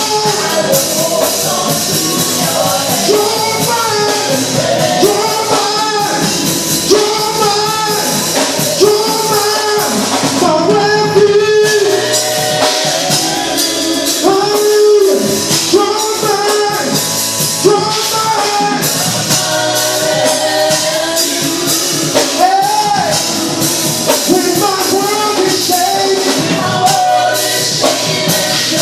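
Live gospel music: a church praise team singing over a band, with steady percussion.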